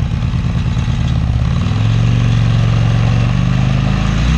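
Harley-Davidson Sportster's V-twin engine running, its pitch rising about a second and a half in, holding steady, then falling off near the end.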